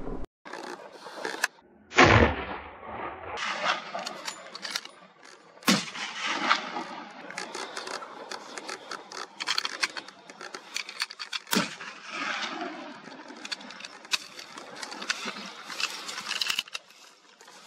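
One gunshot about two seconds in, its report trailing off over about a second. It is followed by continual crackling and snapping of dry brush, with a couple of sharper cracks.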